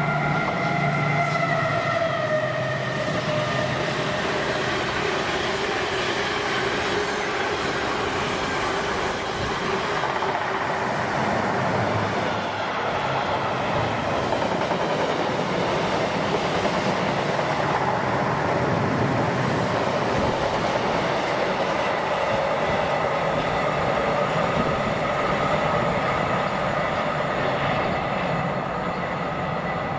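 Diesel-hauled freight train passing, its wagons rolling by steadily with wheel and rail noise. A stack of tones drops in pitch over the first couple of seconds.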